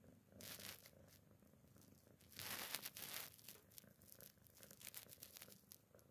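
Domestic cat purring softly and steadily, with brief crackling, crunching noises near the mouth at about half a second in and again, louder, from a little over two seconds to about three seconds in.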